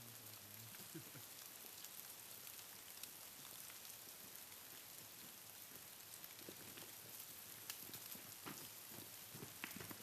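Near silence: a faint, even hiss with scattered soft ticks.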